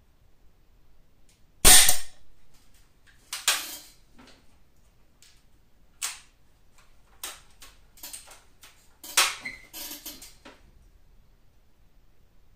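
Daisy 880 multi-pump air rifle firing once about two seconds in: a single loud, sharp crack. It is followed by a series of quieter clicks and clunks from the rifle being handled, with two louder rasping strokes at about three and a half and nine seconds.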